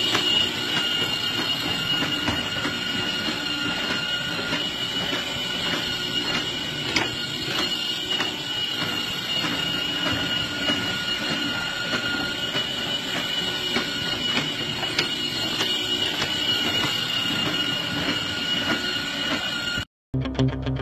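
Battery-powered ride-on toy train running around a plastic track: a steady electric motor and gear whine over the rumble of its wheels, with an occasional click from the track. It cuts off suddenly near the end.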